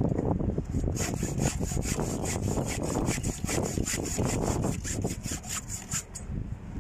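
Hacksaw cutting by hand through a thick 120 mm power cable, in quick, even back-and-forth strokes. The sawing starts about a second in and stops shortly before the end.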